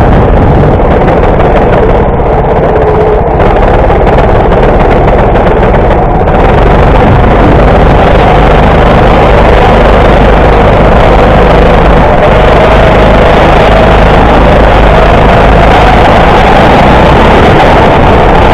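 Go-kart running at speed around a tight track. The motor noise is loud and close, with a pitch that rises and falls a little through the corners.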